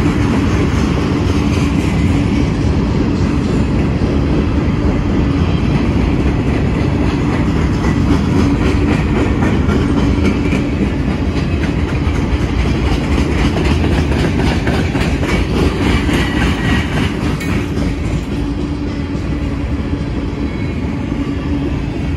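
Freight train cars rolling past at a grade crossing: a steady loud rumble of wheels on rail, with a continuous run of clicks as the wheels pass over rail joints.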